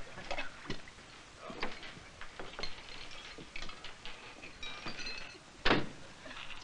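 Scattered light clicks and knocks, with one sharper, louder knock near the end.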